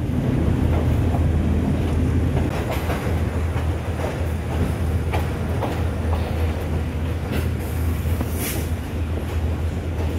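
Train wheels rolling slowly over the track and points, with a steady low drone and irregular clicks and clacks from rail joints. A few brief high wheel squeals cut through, the strongest about eight and a half seconds in.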